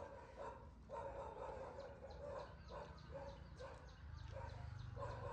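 A dog barking repeatedly, faint, in short calls. A low motor hum comes in about four seconds in.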